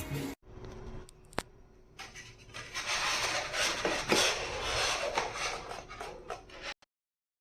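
Clattering and rubbing of hard objects, like dishes or utensils being handled, with a single click about a second and a half in; the clatter cuts off suddenly near the end.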